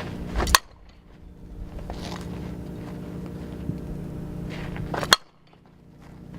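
Two sharp cracks of a softball impact, about four and a half seconds apart, each cut off at once, over a steady low hum.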